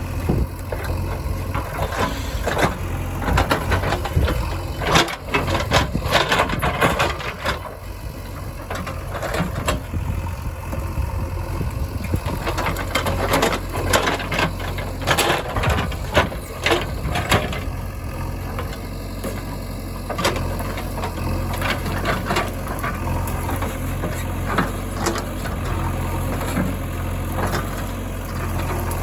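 Heavy diesel machinery engine running steadily, with many sharp metallic clanks and rattles over it that come in clusters.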